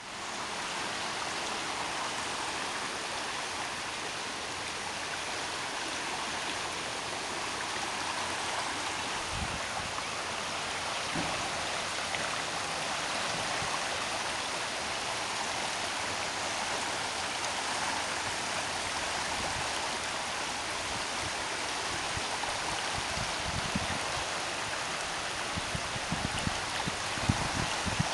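A flooded, swollen stream after a heavy downpour: muddy water rushing in a steady wash. A few short low thumps break in, more of them near the end.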